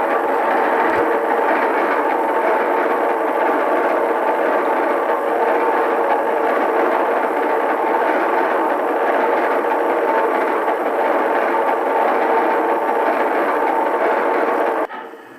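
A train running, a loud steady noise that cuts off suddenly near the end.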